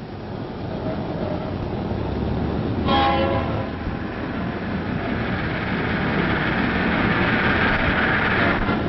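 A heavy vehicle rumbling and growing louder, with one short horn blast about three seconds in and a rising hiss near the end.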